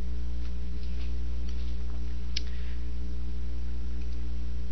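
Steady electrical hum on the recording, with a few fainter steady tones above it, and several faint short clicks, the sharpest about two and a half seconds in.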